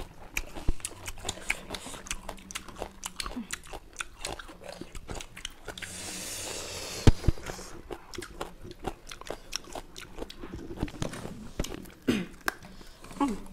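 Close-miked mouth sounds of people eating raw lemon slices: many short wet chewing and smacking clicks, with a longer hissing suck of juice about six seconds in.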